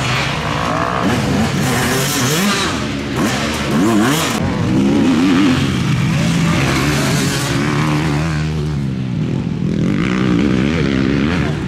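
Enduro motorcycle engines running and revving, the pitch rising and falling with the throttle over a steady running note, more than one engine at once.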